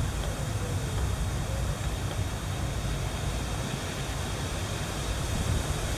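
Wind rumbling steadily on the microphone, a low, even noise.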